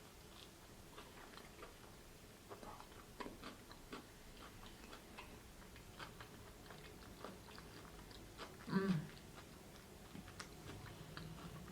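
Soft, close-up chewing: a woman eating pizza in a mukbang, with scattered small wet clicks and smacks of the mouth. A brief louder mouth sound about nine seconds in.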